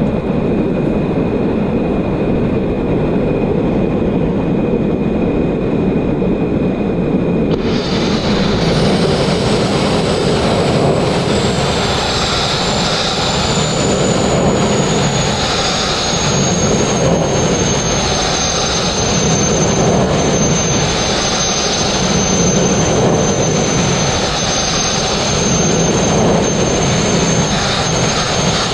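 Sandblasting: compressed air and abrasive grit blasting from a hand-held nozzle against a steel boat hull, a loud steady rushing noise. About eight seconds in, a higher hiss with a thin whistle joins it, swelling and easing about every two seconds.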